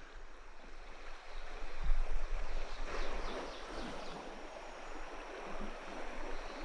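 Shallow stream riffle running over rocks: a steady rush of flowing water, louder for a second or two about two seconds in.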